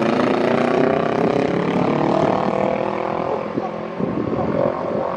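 Jet engines of a Boeing 737-700 (CFM56-7B turbofans) on final approach: a steady, distant drone with a slightly falling pitch.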